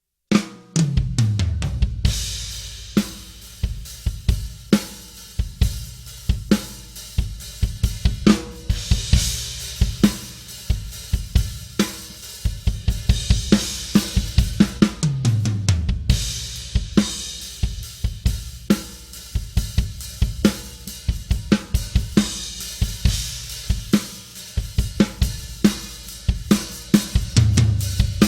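Drum kit played in a groove that features a Tama Artwood solid maple 14x8" snare drum, with bass drum, hi-hat and cymbal crashes. Fills that fall in pitch come about a second in, again around fifteen seconds, and near the end.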